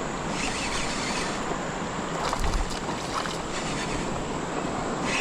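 Steady rushing of flowing creek water, with a brief low bump about two and a half seconds in.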